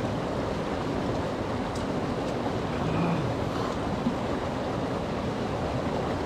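Steady rush of flowing water, an even hiss with no rhythm, with a faint short tone about three seconds in.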